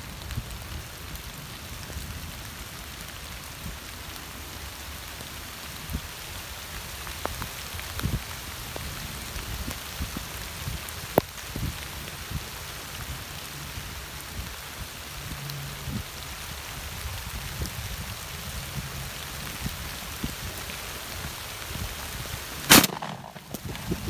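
Steady rain falling, with scattered small drop ticks, then a single loud, sudden shotgun blast near the end: a shot at a gobbler.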